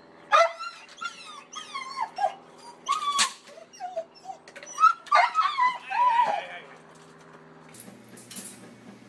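A dog whining and yipping in a run of high cries that bend up and down, for about six seconds, then goes quieter.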